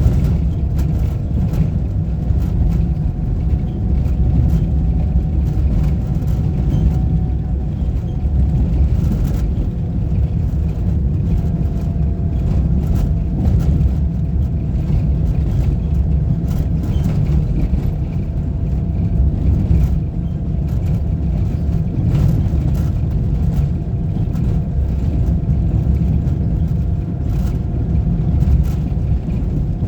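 Motor vehicle driving steadily, a constant low engine and road rumble with faint whining tones, broken by frequent small clicks and knocks.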